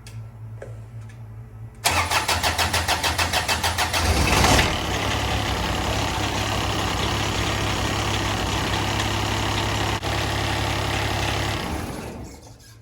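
A cold Briggs & Stratton Daihatsu diesel engine is cranked by its repaired Denso starter with a rhythmic churn for about two and a half seconds after glow-plugging. It then catches and runs steadily, and is shut off and winds down near the end.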